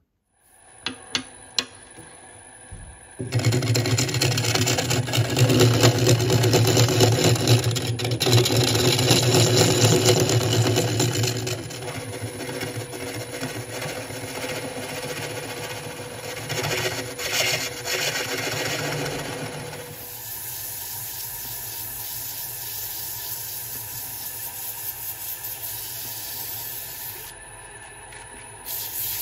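Wood lathe starting up and spinning a bamboo and colored-pencil blank while a carbide-tipped hollowing tool scrapes out its inside: a harsh rasping over the lathe's steady hum. A few clicks come first, the cutting is loudest for the first several seconds after the start, and it then eases into a quieter, steadier run.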